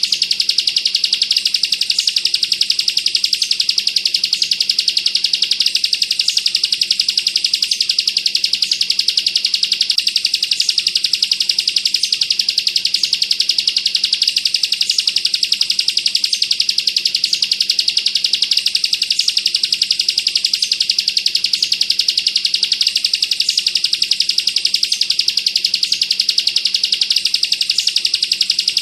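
Bar-winged prinia (ciblek) singing a continuous, very fast rattling trill, the rapid-fire 'bren' song, with short higher notes cutting in about once a second. A faint steady low hum lies underneath.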